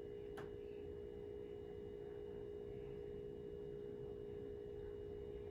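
Faint steady background hum at one mid pitch, unchanging throughout, with a faint click about half a second in.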